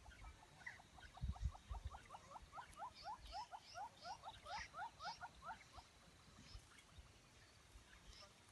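A bird calling a fast run of short rising notes, about five a second, for about five seconds, with a few soft low thumps about a second in.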